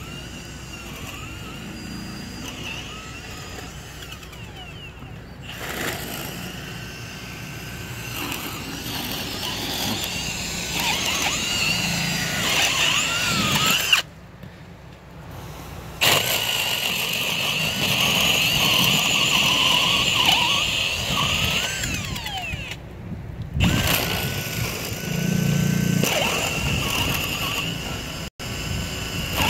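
Cordless drill with a spade bit boring holes through plywood form panels, its motor whine rising and falling as each hole is cut. The sound breaks off abruptly a couple of times.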